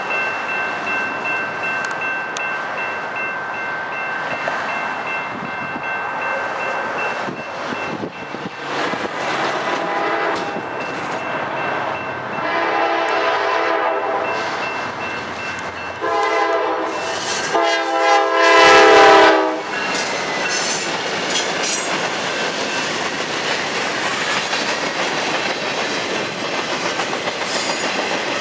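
Freight train approaching, its lead GE Dash 9-40CW locomotive sounding its air horn in several blasts just before the middle, the last one the loudest. The train then rolls past, its empty flatcars and gondolas clattering over the rail joints.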